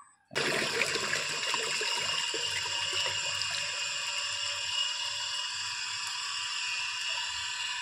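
Water sloshing and swirling in a plastic bucket as dark jaggery water is stirred with a stick to mix in a waste decomposer culture. It starts abruptly a moment in and then runs as a steady watery hiss.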